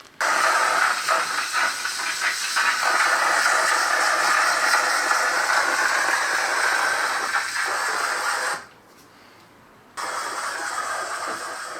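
Powder-coating gun spraying chrome powder onto a wheel: a steady compressed-air hiss that cuts off after about eight and a half seconds and starts again about a second and a half later.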